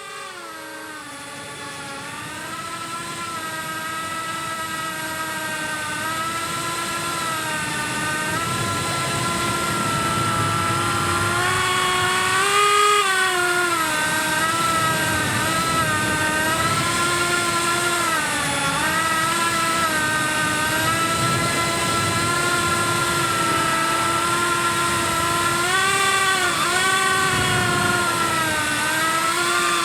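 Cinewhoop FPV quadcopter's electric motors and propellers whining, the pitch rising and falling as the throttle changes, with sharper swings about twelve seconds in and again near the end. The sound fades in over the first several seconds, then holds at a steady level.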